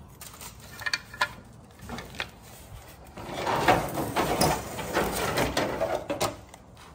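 Hard plastic playset parts being handled: a few light clicks and knocks, then from about three seconds in a longer, louder scraping and rustling as a large plastic piece is shifted against a cardboard box.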